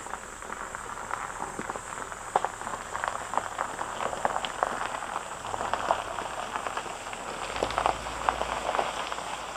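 SUV tyres crunching and popping over loose gravel as it pulls away slowly, with a low engine rumble coming in near the end.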